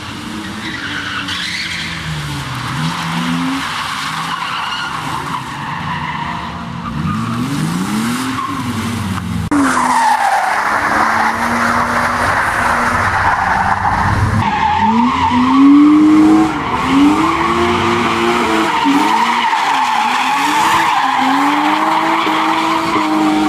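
Rear-wheel-drive BMW 3 Series cars drifting through tight corners, the engines revving up and down with each slide while the tyres squeal. The sound changes abruptly about ten seconds in to a louder car held at high revs in a long squealing slide.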